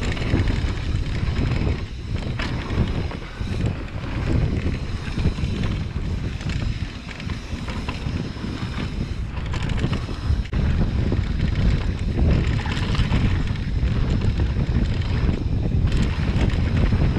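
Wind buffeting the camera microphone and mountain bike tyres rumbling over a dirt singletrack on a downhill run, with a few brief knocks from the bike over bumps.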